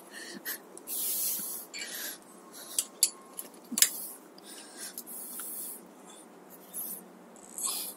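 Cloth rubbing and wiping in short swishy strokes, with a few light clicks and taps between them.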